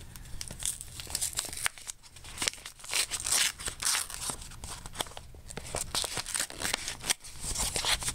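Paper envelope being torn open and crinkled by hand: irregular rustling and sharp crackles of paper, with a longer tearing rustle about three seconds in.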